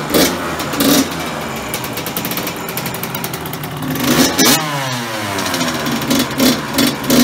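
Freshly rebuilt two-stroke dirt bike engine running on its first start-up, its throttle blipped several times. About four seconds in it revs up hard and the revs fall away, and a few more blips follow near the end.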